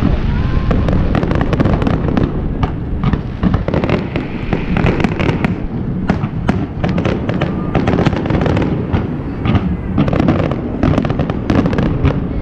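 Aerial fireworks display: a rapid, continuous run of sharp bangs and crackling shell bursts over a steady low rumble.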